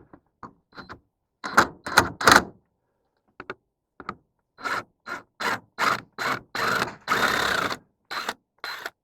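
Hand work on a boat's light mounting: a series of short scraping and clattering strokes, clustered at first and then about three a second, with one longer scrape of nearly a second near the end.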